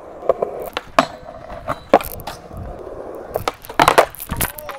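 Skateboards rolling on concrete, with a series of sharp clacks and knocks of boards hitting the ground and the flat bar, about one a second. The loudest cluster comes about four seconds in.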